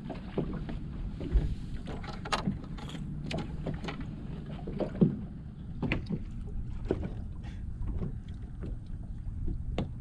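Small waves lapping and slapping against a bass boat's hull, with wind on the microphone and scattered short knocks.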